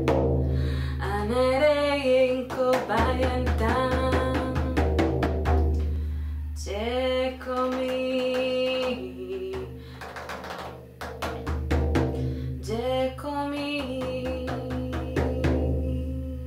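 A woman singing wordless healing-chant phrases, each sliding up into a long held note, over a steady drumbeat and a low sustained drone. The drumming stops near the end, leaving the held note.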